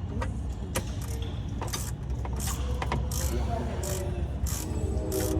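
Ratchet wrench clicking in repeated strokes as cable terminal nuts on an electric vehicle's motor controller are tightened. Music comes in near the end.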